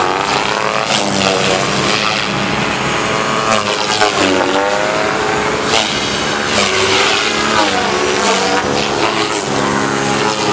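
ALZRC Devil 420 electric RC helicopter flying aerobatics: its motor and rotor whine glides down and up in pitch again and again as the headspeed and blade load change, with swishes from the rotor blades.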